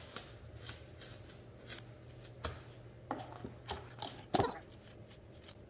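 Plastic cling wrap crinkling and crackling as it is handled and pressed down over a cutting board, with scattered small crackles and a few sharper taps.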